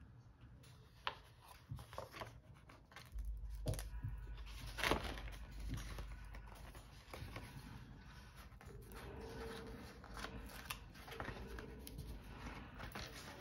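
Stickers being peeled off their backing sheet and pressed onto paper planner pages: soft scattered crinkles, rustles and small taps of paper handling.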